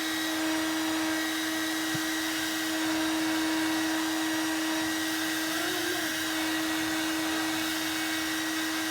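Handheld hair dryer running steadily, an even blowing rush with a constant hum and a faint high whine.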